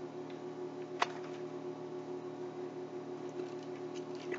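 Steady low hum in a small room, with a single sharp click about a second in and a few faint light ticks near the end as a cookie package is handled.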